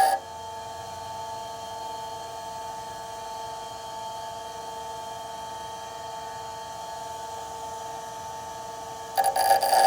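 Bench grinder running freely with a steady hum while the drill bit is lifted off the wheel. Grinding against the wheel starts again near the end.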